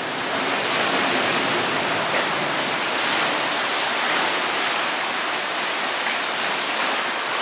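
Steady rush of ocean surf and seawater washing over rocks, heard from inside a sea cave, swelling slightly in the first second.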